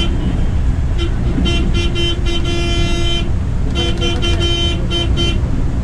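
Vehicle horn honking in a run of short toots, with one longer blast of about a second and a half near the middle. Underneath is the steady low rumble of a Volvo B9R multi-axle coach's engine and road noise, heard from its cabin.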